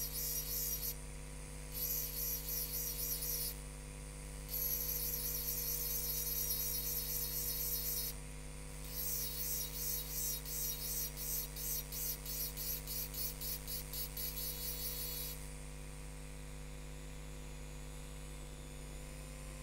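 Rotary glass-engraving tool running with a steady hum while its small burr grinds the wet glass with a high, gritty, rapidly fluttering rasp. The rasp stops briefly three times as the burr is lifted, then stops about 15 seconds in while the motor keeps humming.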